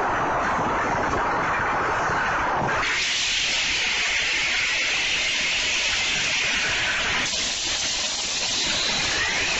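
Pachislot machine sound effect from Another God Hades: a steady rushing noise that switches abruptly to a higher hiss about three seconds in, then shifts again near the end.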